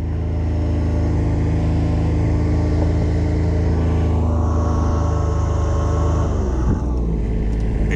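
Engine of a tracked Kubota RTV utility vehicle running steadily as it drives through snow. About six and a half seconds in, the engine eases off and its pitch drops, then holds lower.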